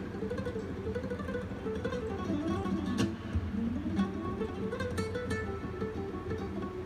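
Steel-string acoustic guitar played in fast picked runs that climb and fall in pitch over and over, heard through a television's speaker.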